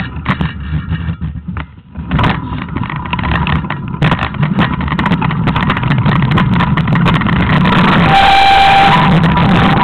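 Engine of an off-road motor vehicle running hard along a snowy forest track, with jolts from bumps and rushing noise on the mounted camera, getting louder as it goes. A short steady higher tone sounds near the end.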